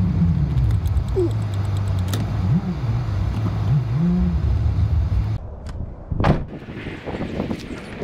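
Jeep Wrangler engine running at low speed while pulling into a parking space, its pitch rising and falling twice. The engine sound stops abruptly about five seconds in, and a sharp thump follows about a second later.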